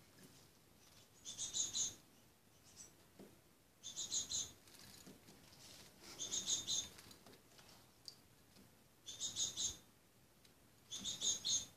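Juvenile tits calling: a quick run of high, thin chirps about every two and a half seconds, five times.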